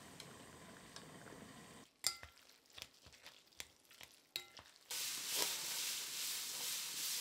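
Cooking sounds in three short parts: glass noodles bubbling in a pot of boiling water, then wet squishing and clicks as soaked glass noodles are mixed by hand with sauce in a bowl, then shredded cabbage sizzling steadily in a hot pan, the loudest part.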